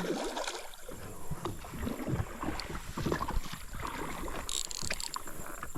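Water splashing and knocking against a small boat as a large hooked fish is played beside it and worked toward the net, with a short hiss about four and a half seconds in.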